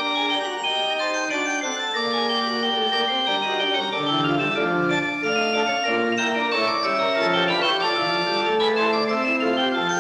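Church pipe organ playing polyphonic music, several voices of sustained notes moving against each other in counterpoint.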